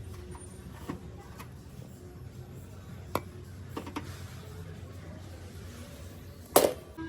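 Shop-floor background with a steady low hum, a few light clicks, and one loud knock near the end.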